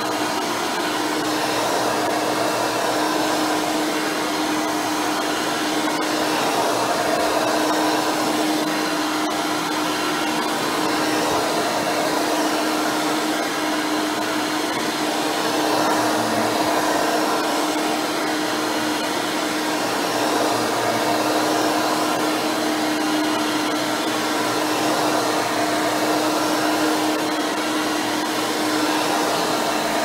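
Hoover Turbopower 4000 upright vacuum, a 7-amp motor fitted with a retrofit 20-blade fan impeller and a soft-nylon brush roll, running on carpet. A steady motor whir with one clear humming tone, its level rising and falling gently every few seconds as it is pushed back and forth.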